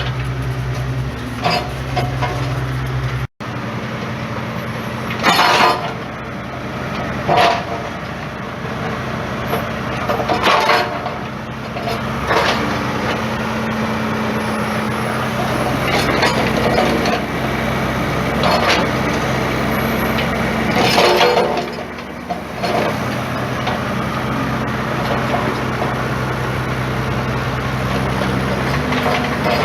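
Diesel tractor engine running steadily under load, its note shifting as it is worked, with several loud scraping and clanking bursts of the machine digging into clay, stone and old rubble.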